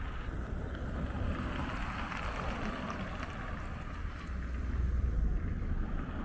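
Street traffic: cars driving past on a town road, with a low rumble of wind on the microphone. The rumble swells louder about five seconds in.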